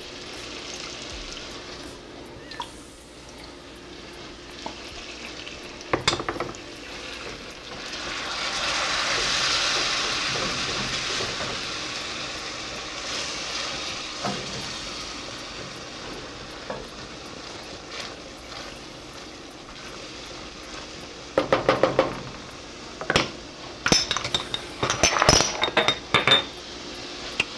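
Sauce sizzling and bubbling in a stainless steel sauté pan on a gas burner, the sizzle growing louder for a few seconds early in the stretch. A spoon stirs and scrapes the pan, with a quick run of sharp metal clinks near the end.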